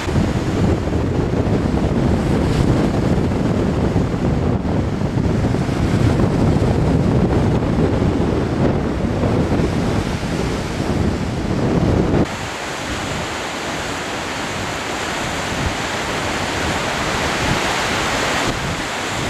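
Wind buffeting the microphone over waves breaking on a lakeshore, with a heavy low rumble. About twelve seconds in it cuts abruptly to a lighter, hissier wash of waves with far less wind rumble.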